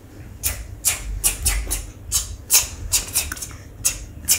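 Rustling and brushing right at the phone's microphone as it is handled, with hair and clothing rubbing against it: a quick, uneven run of short swishes, about two or three a second.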